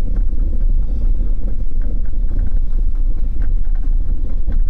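Trabant car's engine idling with a steady low rumble.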